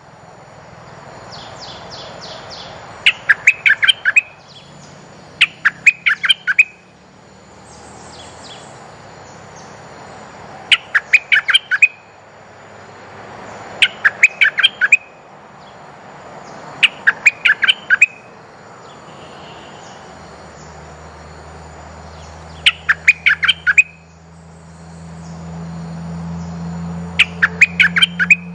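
Bulbul lure call: loud bursts of five to eight quick, clipped notes, each burst about a second long and repeated every three to six seconds, used as a decoy call to draw wild bulbuls to the cage. A faint low drone comes in during the second half.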